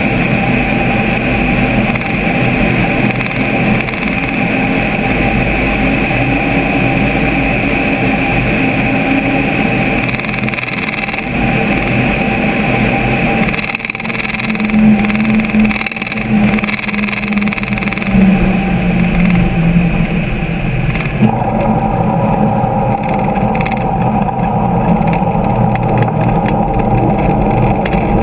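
Light aircraft's engine and propeller running steadily with a rush of air. Partway through, the engine note rises and falls with throttle changes. About three quarters of the way through, the high hiss drops away suddenly and a steadier engine tone comes forward.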